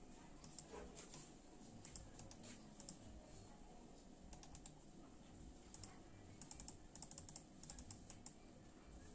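Logitech M100 mouse buttons clicking: a few scattered clicks, then a quick run of clicks in the second half.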